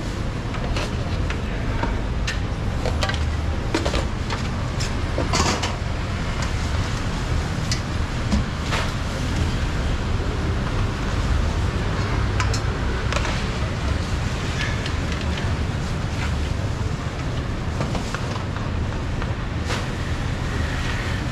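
A knife cutting pineapple on a cutting board, giving irregular sharp taps and clicks, over a steady low rumble of background noise.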